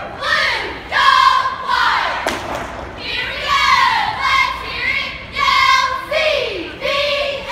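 A cheerleading squad shouting a cheer in unison, in short drawn-out chanted phrases, with a single thump a little over two seconds in.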